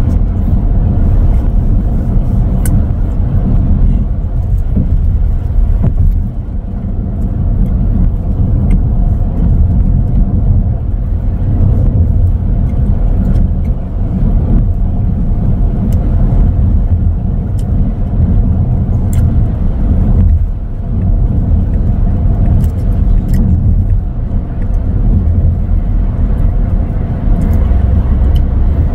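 Road and tyre noise inside the cabin of a Tesla Model X at highway speed, a steady low drone with no engine sound from the electric car, easing briefly a few times.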